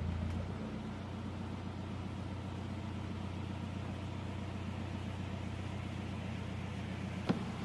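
Narrowboat's inboard engine running slowly with a steady low hum that gets quieter about half a second in. There is a single sharp knock near the end.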